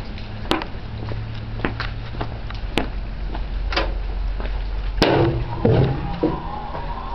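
A few sharp, scattered knocks and clicks over a steady low rumble. The loudest knock comes about five seconds in, and near the end a wavering siren starts up.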